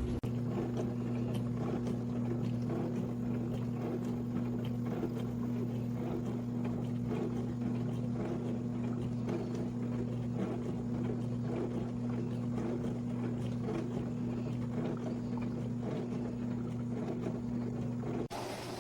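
COMFEE portable countertop mini dishwasher running a wash cycle: a steady motor hum under the rushing of water being sprayed inside the tub. The sound cuts off abruptly near the end.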